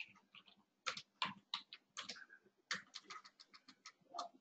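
Faint keystrokes on a computer keyboard, typing in short, irregular runs of clicks.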